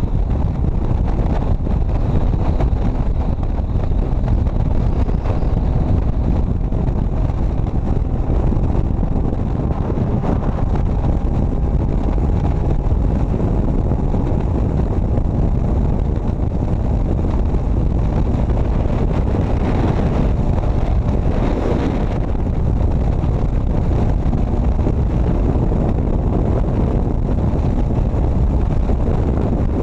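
Wind rushing over the microphone, with road and engine noise from a motorcycle cruising steadily at highway speed.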